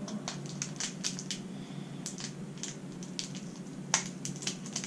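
Clear plastic candy bag crackling and crinkling as scissors are worked into it to cut it open, in irregular short crackles with one sharper click about four seconds in.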